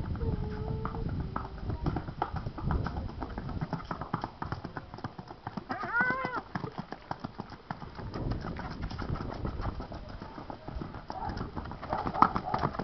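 Hoofbeats of a ridden horse on hard gravel ground, a fast run of close-set knocks, with a short rising-and-falling call about six seconds in.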